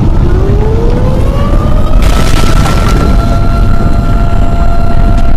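Loud, deep rumble with a siren-like tone that glides upward for about two seconds and then holds steady. A burst of hiss comes about two seconds in.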